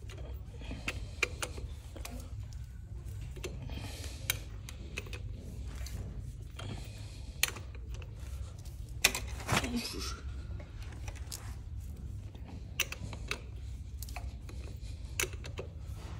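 Honda F23 four-cylinder engine turned over by hand with a ratchet on the crankshaft pulley bolt: scattered metallic clicks and knocks from the tool and the turning engine over a steady low hum. The engine is being cranked to check that it is not seized.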